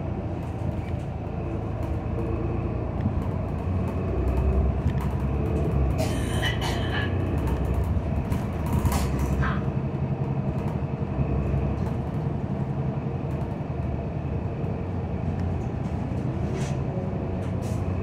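City transit bus driving along, heard from inside the cabin: a steady engine and road rumble, with brief higher-pitched rattles or squeaks about six and nine seconds in.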